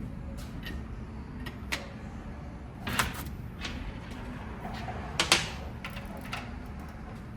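Hand tools clicking and knocking on metal engine parts while bolts are torqued to angle: scattered light clicks, with two louder knocks about three and five seconds in, over a steady low hum.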